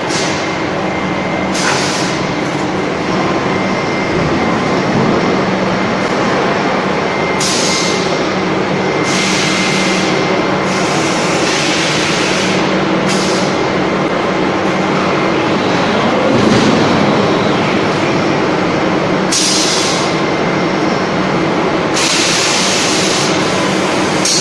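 Forging-line machinery running with a loud, steady hum. Over it come repeated hissing blasts at uneven intervals, each lasting about a second or two.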